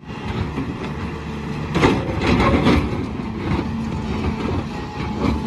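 Heavy diesel engine running with a steady low drone, with a run of knocks or clanks about two seconds in.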